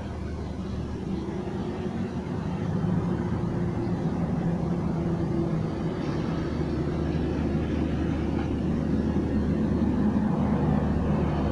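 A steady low engine drone, running evenly throughout.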